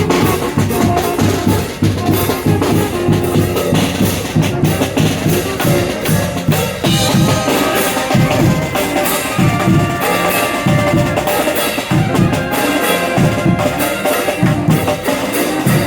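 Live street band playing: drums and percussion keep a steady beat under held melody notes.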